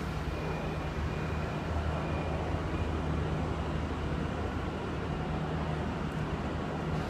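Hamburg S-Bahn class 474 electric multiple unit pulling slowly out of the station, giving a steady low electrical hum over a wash of noise.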